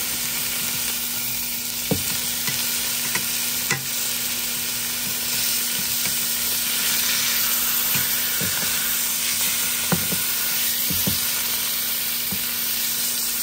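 Beef tri-tip roast searing in hot fat in a pot: a steady sizzle with a few sharp pops and spatters scattered through it.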